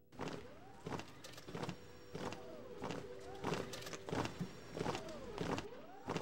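Footsteps of a group walking in step on cobblestones, one sharp unison step about every two-thirds of a second, over a steady humming tone.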